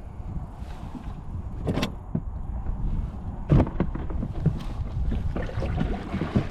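Wind rumbling on the microphone, with several sharp knocks and thumps on a kayak, the loudest about three and a half seconds in, as a small bass is landed.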